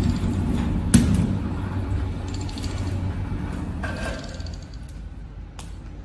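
Electric wire stripping machine running, its geared rollers and blade drawing a thick black cable through and slitting the sheath off the copper core. There is a sharp click about a second in, and the running grows quieter toward the end.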